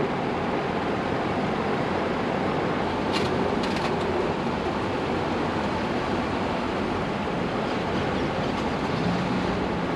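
Steady rushing noise of a large drum fan running, with a few light metal clicks from hand tools about three and four seconds in as an engine cover is refitted on a Harley-Davidson Shovelhead.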